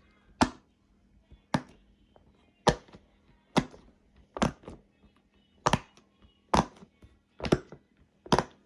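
Silicone fidget popper bubbles being pressed in one by one, a sharp pop about once a second, nine in all.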